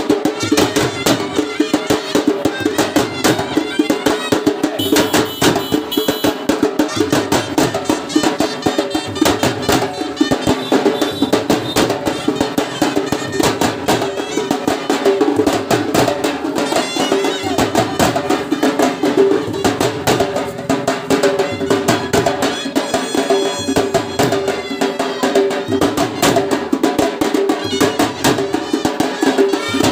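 Traditional festival music: fast, dense drumming over a steady, droning reed-like melody.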